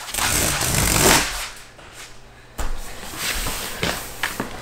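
Cardboard boxes being handled: the iMac box shifted inside its brown shipping carton, a noisy rustle and scrape in the first second, then quieter rustling with several sharp taps and knocks.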